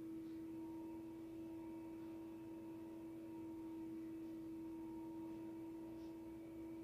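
A faint, steady hum: one even tone with fainter higher tones above it, unchanging throughout.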